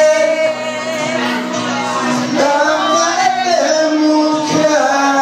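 A man singing an Italian love song through a microphone over amplified backing music, holding long drawn-out notes that glide in pitch.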